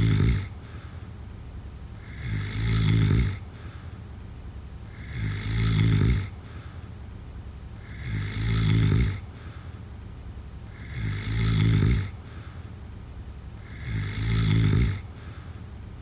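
A sleeper snoring in slow, regular breaths: a low snore about every three seconds, six in all. Each snore swells over about a second, then breaks off.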